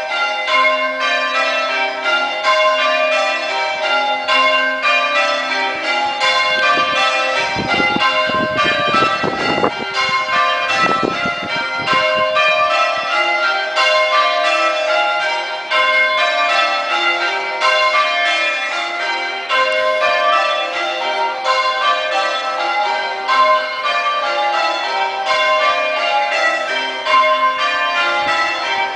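Church bells being change-rung in call changes: a ring of bells struck one after another in a steady, evenly repeating rhythm.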